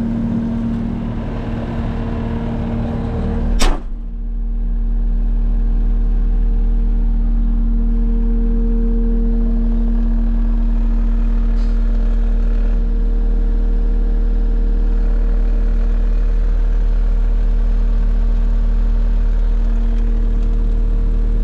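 Case SR270 skid steer's diesel engine running steadily. A single sharp knock comes a little under four seconds in, after which a deep, steady drone takes over.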